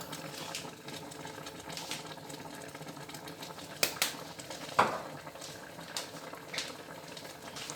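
Pot of beef, cow skin and tripe simmering steadily, with a few sharp clicks, the loudest about four and five seconds in.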